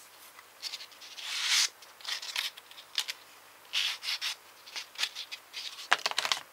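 A sanding stick rubbed against a small plastic model-kit part in short, irregular scratchy strokes, about eight of them, the longest and loudest about a second and a half in.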